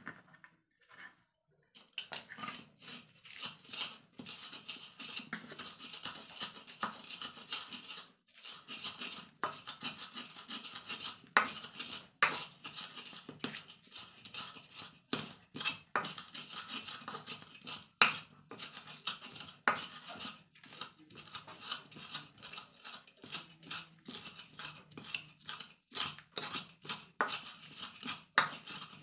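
An ulekan pestle grinding chopped fresh red chillies and salt against a cobek mortar: quick, repeated rough scraping strokes with a sharp knock of pestle on mortar every now and then. It starts about two seconds in.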